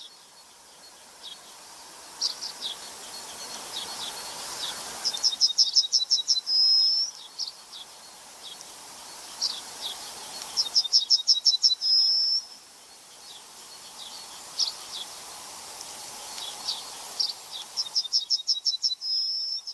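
A songbird singing the same high phrase three times: a quick run of about ten clipped notes ending in one longer whistle, with scattered single chirps between. A steady high hiss of insects runs underneath.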